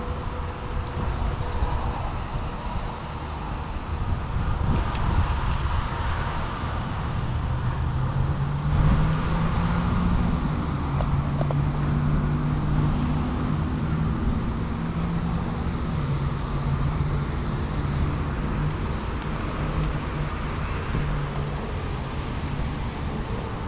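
Road traffic noise: a steady low rumble, joined about nine seconds in by a steady engine hum that fades out near the end.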